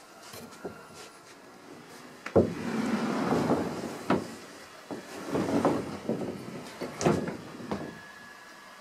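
Bouts of scuffling and scratching with a few sharp knocks from a cat dashing about on a carpet, its post-litter-box zoomies.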